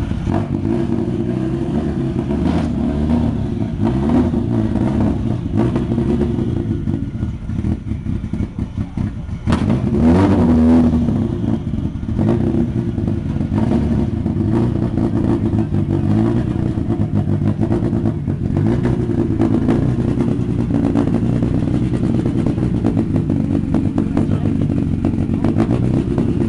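Tuned first-generation Fiat Bravo's engine running through its exhaust, revved up and down over and over, with the loudest rev about ten seconds in.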